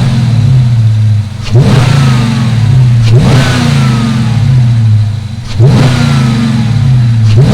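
Dodge Charger R/T's 5.7-litre HEMI V8, fitted with a freshly installed AirRaid cold air intake, being revved in repeated short blips. Each rev climbs quickly and falls back over a second or so, about four times, with another beginning at the end.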